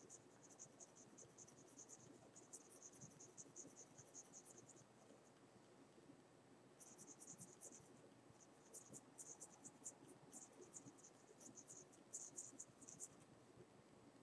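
Faint scratching of a mechanical pencil's lead on paper in quick, short hatching strokes. The strokes come in two runs with a pause of about two seconds between them.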